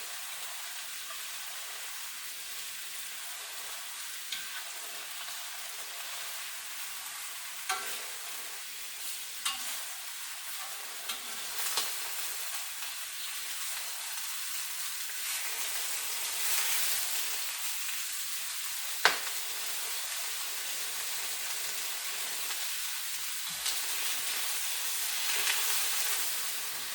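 Chicken drumstick pieces sizzling steadily as they pan-fry in oil, browning on one side, with occasional sharp clicks and knocks of the pieces being turned and moved in the pan, the loudest about two-thirds of the way in.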